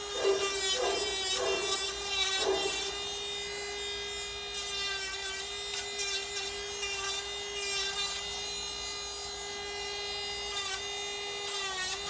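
Electric dog nail grinder running with a steady high-pitched whine. Short rasping bursts sound each time the spinning head grinds a bulldog's toenail, most often in the first few seconds.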